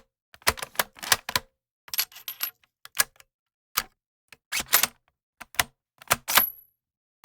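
Firearm action being worked by hand: a string of sharp metal clicks and clacks in small clusters, with short silences between. Two of the clacks leave a brief high metallic ring.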